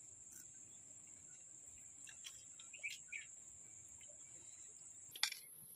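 Faint, steady, high-pitched insect trill, typical of crickets. A few soft clicks come about two to three seconds in, and a sharper click comes near the end, where the trill jumps higher.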